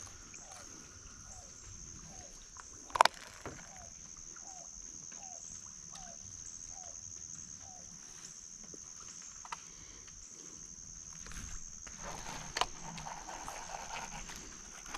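A steady, high-pitched insect drone, most likely cicadas. Over it, in the first half, an animal gives about a dozen short, falling calls at roughly two a second. A single sharp knock comes about three seconds in.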